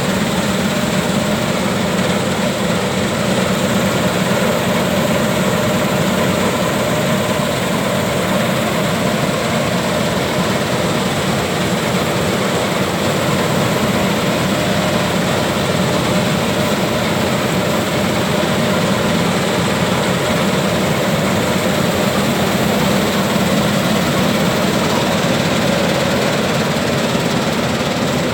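Dasmesh 9100 combine harvester running steadily, a loud, even drone of engine and machinery.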